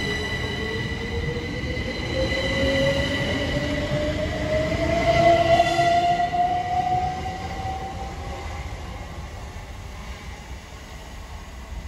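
Electric multiple unit pulling away, its traction motors whining steadily higher in pitch as it accelerates, with a high steady squeal over it. The squeal fades about six seconds in, and the whole sound dies away as the train recedes.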